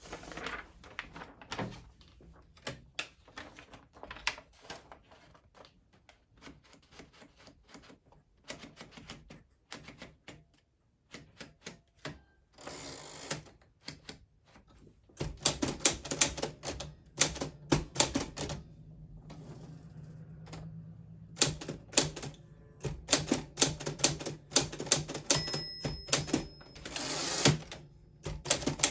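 1940s Smith Corona Silent manual typewriter being typed on: irregular runs of keystrokes, sparse at first and quicker and louder from about halfway. Twice, near the middle and near the end, a longer sound of about a second interrupts the keystrokes.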